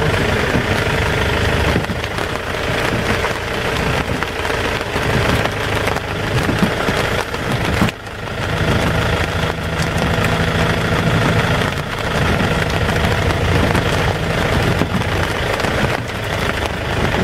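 Jeep engine idling steadily. The sound breaks off for a moment about eight seconds in and then carries on idling.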